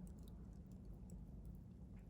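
Wood fire burning quietly, with faint scattered crackles and ticks over a low, steady background rumble.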